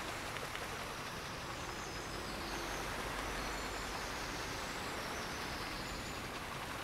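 Steady outdoor ambient noise, an even soft hiss, with a few faint high bird chirps.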